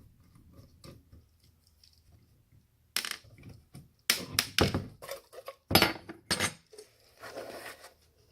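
Metal tools and small parts clinking and clattering while scrap electronics are taken apart by hand: a few seconds of near quiet, then a quick string of sharp clinks and knocks, a short scraping rustle, and one more knock at the end.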